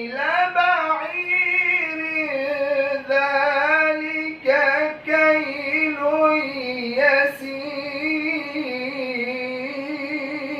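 Quran recitation in the Egyptian mujawwad style: a single voice drawing out long, ornamented melodic phrases, held for several seconds at a time with brief breaks for breath. The voice is dry, without added echo or effects.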